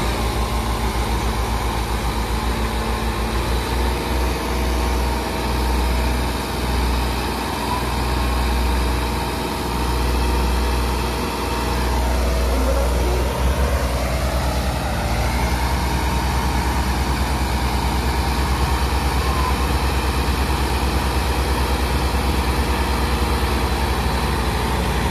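New Holland 5620 tractor's diesel engine working under load, its low rumble surging and easing unevenly, then settling into a steadier running beat about halfway through.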